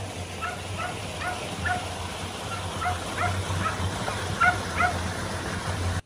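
A dog yapping in short, high yips, about two a second, over a low steady hum.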